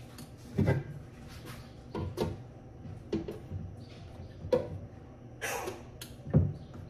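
Kitchen handling noises as a blender jar is lifted and tipped over a pot on the counter: a string of irregular knocks and thumps, with a short hiss about five and a half seconds in.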